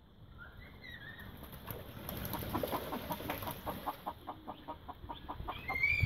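Backyard fowl calling: a quick run of clucking calls, about four a second, through the middle, then a louder arching call near the end.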